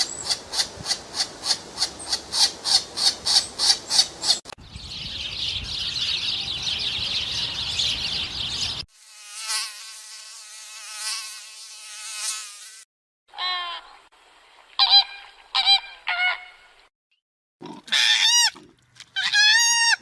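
A run of animal sounds. First a bird chirps rapidly, about four chirps a second. From about 4.5 s a mosquito buzzes steadily and high. From about 9 s flamingos honk in a pulsing call, and from about 13 s there are short groups of rising-and-falling animal calls.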